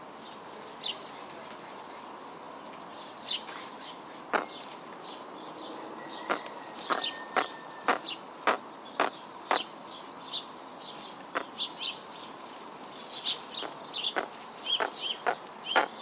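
Short, sharp bird calls like chips or clucks, repeated irregularly over a steady background hiss: a few at first, coming thick and fast in the second half.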